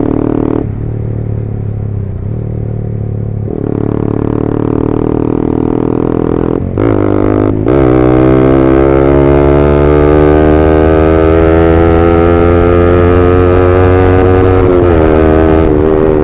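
Yamaha R15M's single-cylinder engine through an aftermarket SC Project full-system exhaust, ridden on the road. It holds fairly steady revs at first, the note breaks twice in quick succession about seven seconds in, then climbs slowly through a long pull and dips again near the end.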